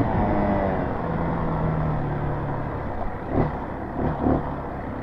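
Dirt bike engine running, its pitch falling over the first second as the bike slows, then holding steady, with a few short thumps in the second half.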